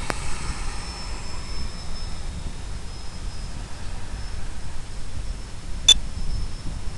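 Electric-powered FPV model aircraft in flight under power: a steady rushing noise with a faint, thin high whine, and one sharp click near the end.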